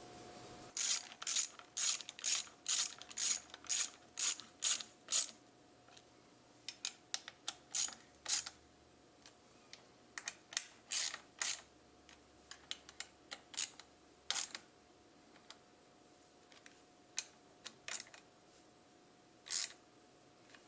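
Hand socket ratchet clicking as bolts are turned on a motorcycle engine's water pump housing. First comes a run of about a dozen even clicks, roughly three a second, then shorter irregular groups of clicks with pauses between them.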